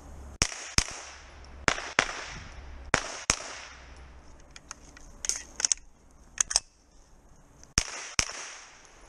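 Pistol-caliber carbine firing on a course of fire, mostly in quick pairs about a third of a second apart. A quicker run of cracks comes midway.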